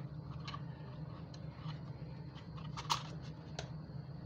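Small clicks and taps of hands handling plastic parts and wiring inside an opened infusion pump, with one sharper click about three seconds in, over a steady low hum.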